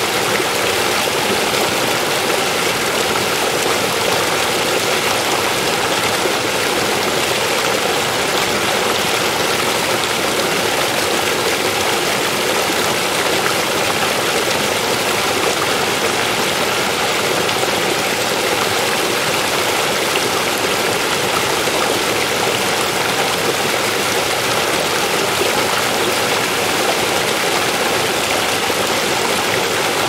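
River water flowing: a steady, even rush with no breaks or changes.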